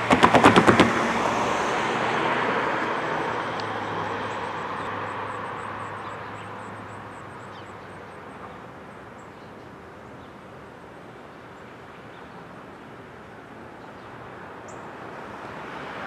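A car passing on the road, with a quick rattling clatter of about eight rapid knocks in the first second, then its noise fading away. The background sound begins to build again near the end.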